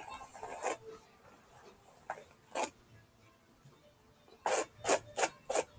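Hairbrush bristles swishing through long hair in short strokes: a few spaced strokes, then about four quick ones near the end.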